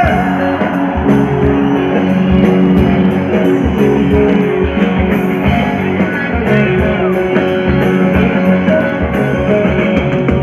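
Live rock band playing an instrumental passage without vocals: electric guitars over bass and drum kit, loud and steady, heard from within the audience.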